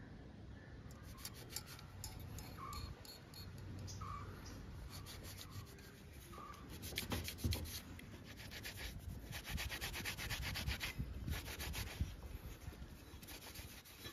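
Cloth rag rubbing over the gauge face and metal housing of a Mercedes-Benz W123 instrument cluster in quick back-and-forth scrubbing strokes. The scrubbing is busiest about two-thirds of the way through.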